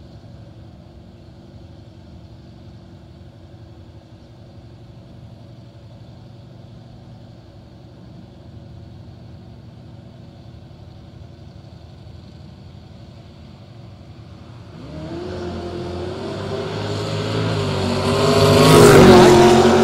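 Drag race cars idling low at the starting line, then launching about fifteen seconds in and accelerating hard down the strip, the engine note rising and growing loud to a peak near the end as they go by.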